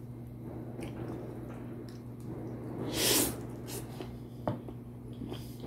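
A person slurping in a mouthful of noodles once, about three seconds in, amid quieter wet eating sounds. Under it runs a steady low hum, and a short click comes near the end.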